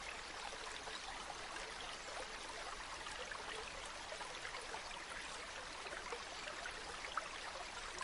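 A shallow river stream flowing, a steady rushing and trickling with small splashes and bubbles throughout.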